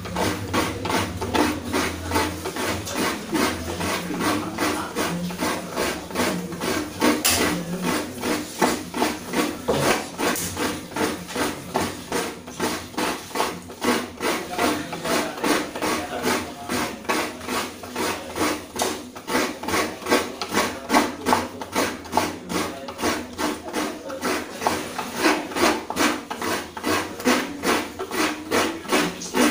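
Coconut half being scraped back and forth against the serrated metal blade of a kudkuran, a wooden coconut-grater stool: a rhythmic rasping scrape at about two to three strokes a second.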